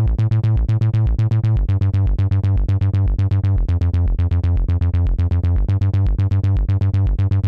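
Upbeat electronic pop music: a steady, evenly pulsing synthesizer and bass pattern, with no lead voice.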